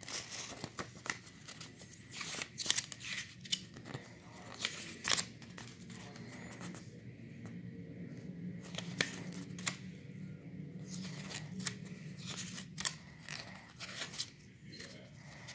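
Glossy paper inserts and a booklet being handled and leafed through: irregular crisp rustles and snaps of paper, some sharper than others.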